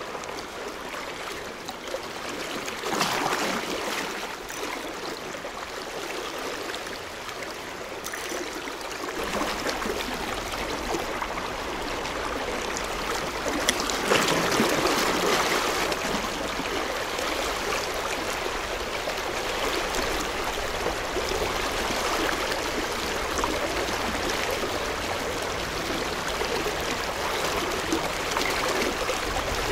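Fast-flowing river water rushing steadily, swelling louder for a moment about three seconds in and again around fourteen seconds.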